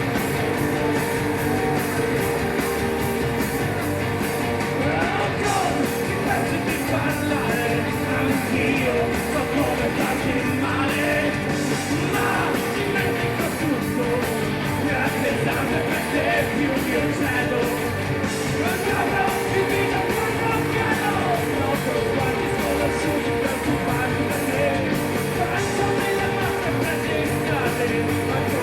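Live rock band playing loud distorted electric guitars, bass and drums, with shouted singing over the top.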